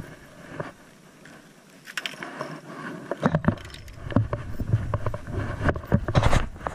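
Handling noise: clothing rubbing against a body-worn camera, with scrapes and knocks on a boat deck, growing heavier and busier from about three seconds in.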